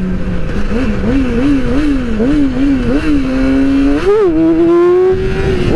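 2008 Yamaha R6's inline-four engine, with the throttle rolled on and off about twice a second, then a sharp rev about four seconds in and a steady, slowly climbing pull as the bike accelerates hard into a wheelie. Wind rush runs underneath.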